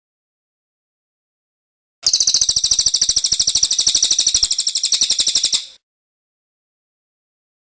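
A small songbird's rapid, high-pitched chattering trill, very evenly repeated notes lasting about three and a half seconds, starting about two seconds in and breaking off sharply.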